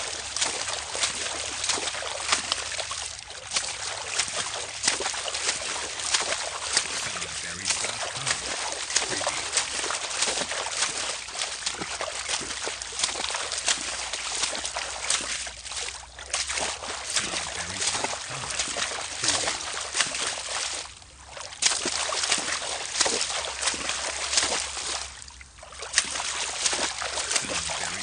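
Footsteps wading through water: a continuous run of splashing and sloshing, with three short pauses in the second half.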